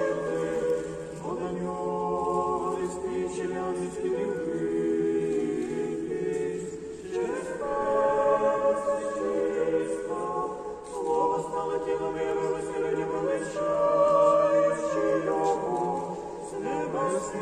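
Choir singing unaccompanied Orthodox memorial-service chant: several voices hold long chords in slow phrases, with short breaks about seven and eleven seconds in.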